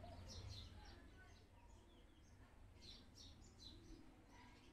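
Faint chirping of small birds, in two short runs: one right at the start and another about three seconds in, over near silence.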